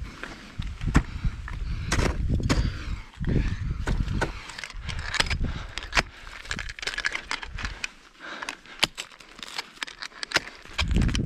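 Ice climbing on water ice: a scatter of sharp knocks and scrapes from ice axes and crampons on ice, with clinking hardware and low rumbles against the microphone.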